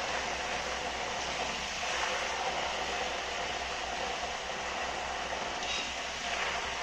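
Jackfruit chips sizzling as they deep-fry in hot coconut oil, nearly done: a steady hiss.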